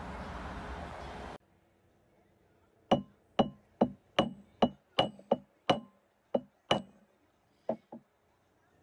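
Hammer striking a small metal piece on a bench anvil: about ten sharp, ringing blows at roughly two to three a second, then two lighter taps near the end.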